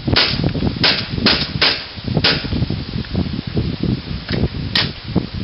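KWA MP9 gas blowback airsoft submachine gun firing single shots: about six sharp cracks in the first two and a half seconds, each from a gas burst and the cycling blowback bolt, then one more crack near the end.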